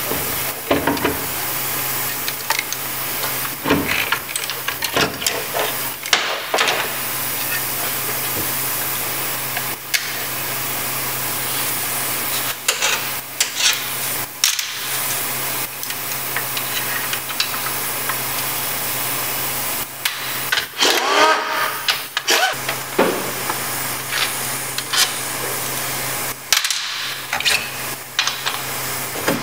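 Clinks, clicks and scrapes of 700R4 transmission parts being handled as the valve body is lifted off and the separator plate worked on, over a steady low hum and hiss. A brief squeak sounds about two-thirds of the way through.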